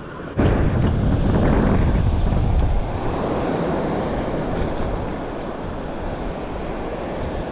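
Surf washing on the beach with wind buffeting the microphone: a steady rushing noise, heaviest in the low end.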